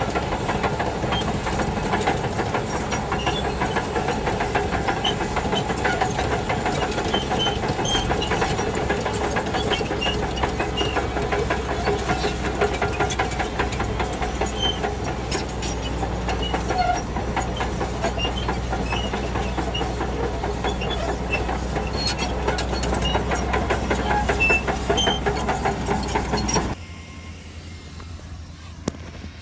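Shantui DH17C2 crawler bulldozer working: its diesel engine running steadily under load with a fast, continuous clatter of the steel tracks. About 27 seconds in the sound drops abruptly to a quieter low hum.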